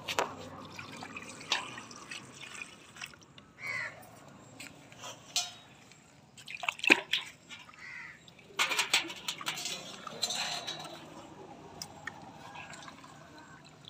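Water sloshing and dripping as hands wash gutted tilapia in a steel basin, in irregular short splashes.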